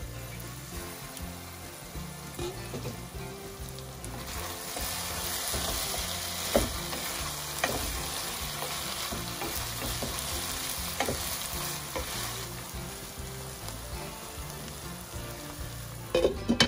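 Lamb mince with diced potato and peas sizzling in a non-stick pot while a wooden spatula stirs and scrapes through it. The sizzle grows louder a few seconds in as the stirring gets going, with occasional sharp scrapes of the spatula. Just before the end the glass lid knocks back onto the pot.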